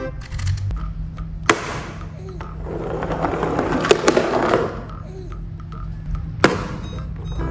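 Small toy cars' wheels rolling down a hard ramp. The rumble swells from about two and a half to four and a half seconds in, with a few sharp clacks.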